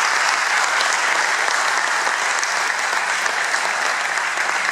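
Concert audience applauding steadily, a sustained round of hand clapping.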